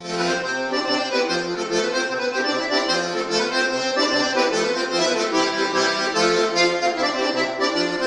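Diatonic button accordion (organetto) playing a traditional Calabrian dance tune: a melody over chords, with low bass notes pulsing at a regular beat.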